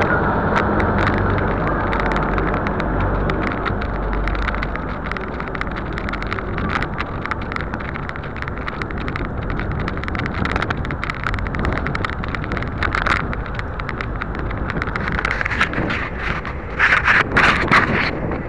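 Steady low rumble and rush of travel along a street, heard on a moving camera's microphone, with many sharp clicks and rattles throughout and a louder pulsing burst near the end.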